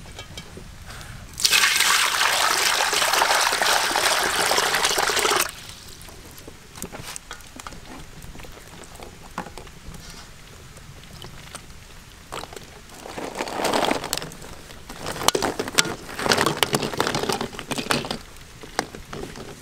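Water being poured into a metal wok, a steady pour of about four seconds that stops abruptly, followed later by shorter, uneven splashes and pours.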